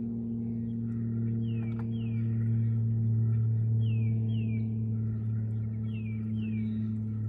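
A steady low hum that swells slightly about three seconds in, with a bird calling over it, repeating a pair of short falling whistled notes every two seconds or so.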